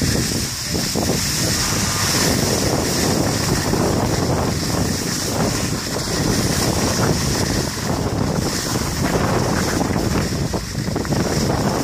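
Wind buffeting the microphone of a skier gliding downhill, a steady rushing noise, mixed with the hiss of skis sliding on packed snow.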